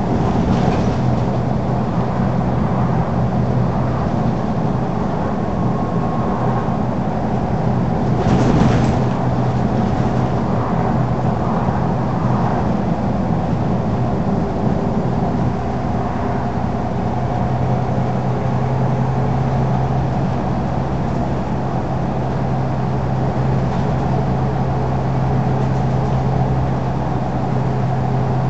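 Scania single-deck bus heard from inside the saloon while driving along, its engine giving a steady low drone over road and tyre noise. A brief louder rush of noise comes about eight seconds in.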